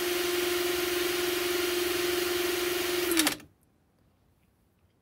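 Electric power drill running at steady full speed with a steady hum, spinning a brake wheel cylinder piston held in its chuck while the piston's seal surface is dressed with emery paper. The drill is switched off a little over three seconds in, and its pitch drops as it winds down.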